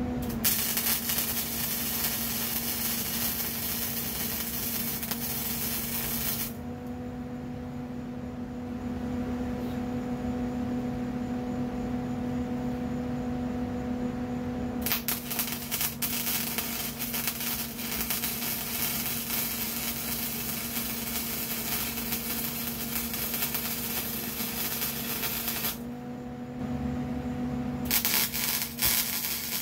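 Electric arc welding on the steel tube of a go-kart frame: a steady crackling sizzle in three runs, broken by a pause of about eight seconds and a shorter one of about two seconds near the end, in which only a steady hum remains.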